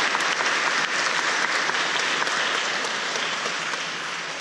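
Audience applauding, a dense patter of clapping that slowly dies away toward the end.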